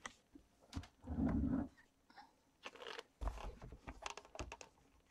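Close rustling and soft bumps from a long-haired mother cat shifting in a fleece bed right against the microphone. The loudest rustle comes about a second in and another near three seconds, with scattered small clicks between.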